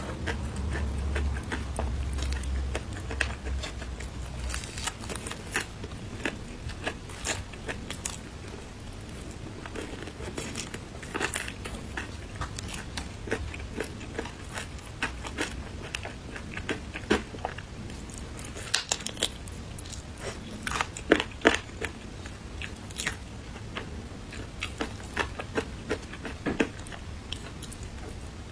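Crunching and chewing of crispy breaded fried chicken: irregular crackly bites and chews, loudest in a cluster about two-thirds of the way through.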